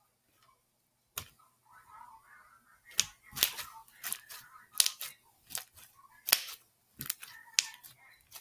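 A series of sharp clicks and taps at irregular intervals, about a dozen, with faint rustling between them, as of small objects being handled.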